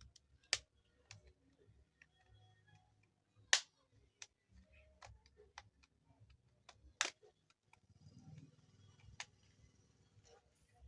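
Scattered sharp plastic clicks and snaps, about a dozen at uneven intervals, as the housing of a small keypad mobile phone is handled and pried open.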